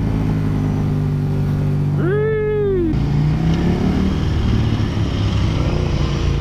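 Motorcycle engine running steadily at road speed, heard from the rider's own bike with a steady rush of wind and road noise. About two seconds in, a short tone rises and falls over the engine.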